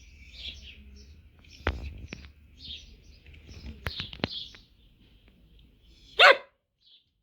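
A dog barks once, loudly, near the end, over birds chirping in the background.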